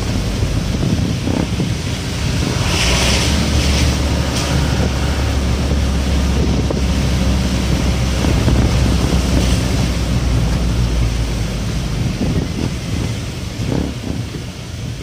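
Bus engine droning steadily with a low hum under the hiss of tyres on a wet road, heard from inside the cab while driving in rain. A brief louder hiss about three seconds in.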